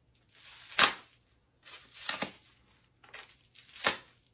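A dirk's blade cutting through packing tape and wrapping around a bagpipe part: three cutting strokes about a second and a half apart, each building to a sharp rip.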